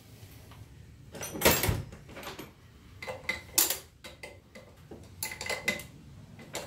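Hand tools and metal engine parts clanking and clinking during work under the hood. The loudest knock comes about a second and a half in, with more clinks around three and a half and five and a half seconds.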